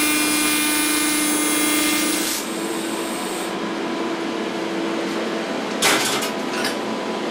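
TIG welding arc on stainless steel, a steady buzzing whine that cuts off about two seconds in. A steady machine hum carries on after the arc stops, with a brief scrape or knock near the end.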